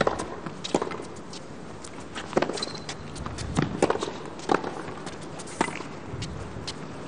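Tennis ball hit back and forth in a rally on a hard court: a string of sharp racquet pops and ball bounces, roughly a second apart.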